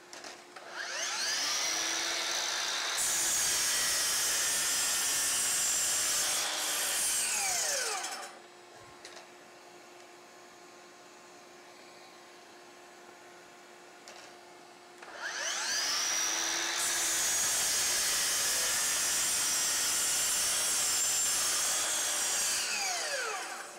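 DeWalt DCS781 60V 12-inch sliding miter saw making two cuts. Each time the brushless motor spins up with a rising whine and runs loud for several seconds while the blade goes through the stock. Then the blade is braked to a stop with a falling whine in about a second.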